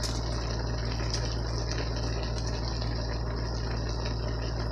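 Diced chicken thighs frying at high heat in a pot, sizzling and bubbling steadily in their juices, over a steady low hum.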